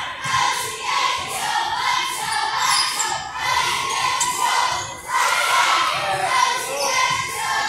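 Crowd of high-school spectators shouting and cheering in a gym, with repeated sharp knocks through it.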